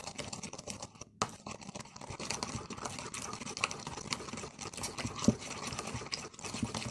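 Hand-stirring a thick, sticky paste of powders, honey, banana and egg: a quick, continuous run of wet scraping and clicking, pausing briefly about a second in.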